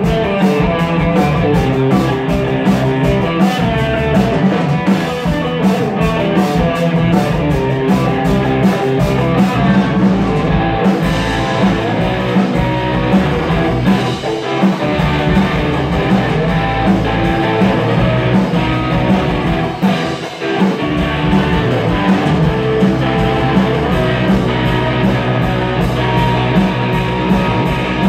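Live amplified rock band playing: electric guitar, drum kit, and an EWI (electronic wind instrument) carrying the lead. Fast cymbal or hi-hat ticks run until about eleven seconds in, then drop away, and there is a short dip in the playing around twenty seconds in.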